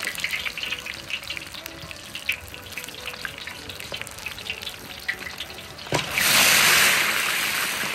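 Water splashing and trickling with many small sharp crackles, then about six seconds in a sudden loud rush of water that slowly eases off.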